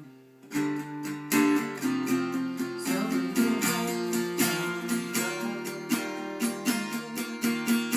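Acoustic guitar, capoed at the third fret, strumming chords in 6/8 time with straight down strokes; the strumming starts about half a second in and keeps an even rhythm.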